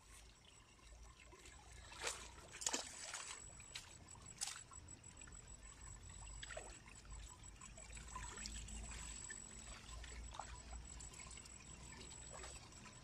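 Faint water splashing and trickling as a large fish thrashes in shallow floodwater, with a few sharp splashes in the first few seconds and quieter, scattered ones after.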